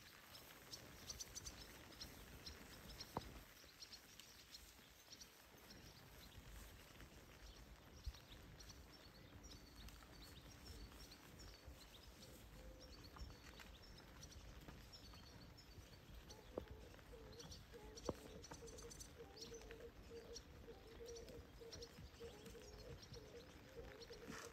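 Near silence: faint outdoor ambience with small birds chirping on and off and a few soft clicks.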